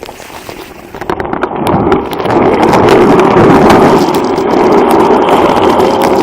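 Skateboard wheels rolling over rough pavement: a loud, steady rumble with small clicks and rattles, building up over the first two seconds as the board gathers speed.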